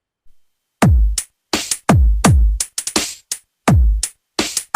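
Electronic dance music with deep drum-machine kick drums, each hit dropping in pitch, played in a stop-start run with short silent gaps between them and starting about a second in.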